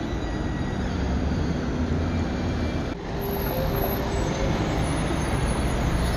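Road traffic with a trolleybus driving past and pulling away: a steady road rumble that breaks off briefly about three seconds in, then carries on with a faint steady tone.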